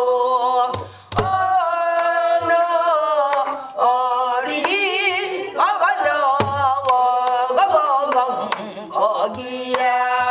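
A woman sings a Korean Namdo folk song (Namdo minyo) in the full-throated pansori style, holding long notes with a wavering vibrato. She accompanies herself on a pansori barrel drum (buk): sharp stick cracks on the drum's shell and deep thumps on the drumhead mark the rhythm.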